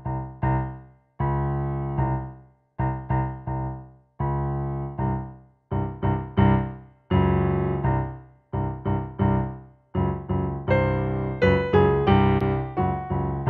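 Background piano music: notes and chords struck one after another, each dying away, with short pauses between them. About ten seconds in the playing grows busier, with more high notes.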